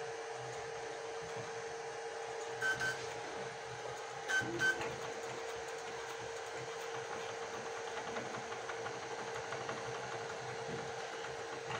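FLSUN Super Racer delta 3D printer running mid-print, a steady machine hum. A few brief higher-pitched tones come about three seconds in and again about four and a half seconds in.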